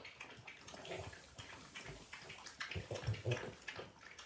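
French bulldogs lapping water from bowls: irregular wet laps and slurps, a few a second.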